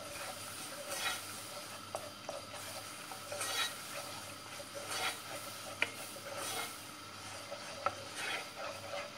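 Wooden spoon stirring and scraping a flour-and-margarine roux around an enamel pot, in strokes about once a second, over a steady light sizzle of the flour toasting in the hot fat.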